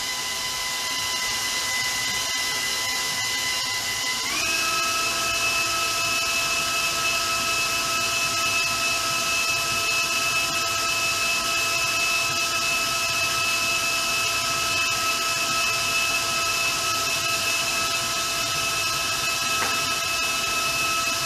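Electric mixer running steadily, its motor whining as it beats royal icing toward stiff peaks; about four seconds in, its pitch steps up as the speed is raised.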